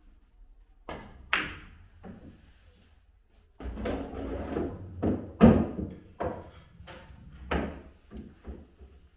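Pool shot: the cue tip clicks the cue ball, and a moment later the cue ball cracks into the object ball. Then the pocketed ball rumbles and knocks along the table's ball-return channel for several seconds, with the loudest knock about halfway through.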